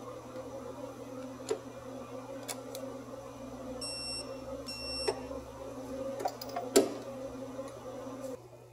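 Spark plug being tightened with a hand wrench and socket: sharp metal clicks and knocks of the tool. About four and five seconds in come two short electronic beeps. A steady low hum runs underneath.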